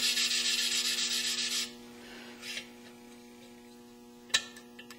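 Gritty grinding of an engine valve being lapped against its seat with grinding compound, the suction-cup lapping stick spun back and forth by hand; the rasp is smoothing and getting quieter as the valve face and seat wear in, and it stops about a third of the way in. A sharp click follows near the end.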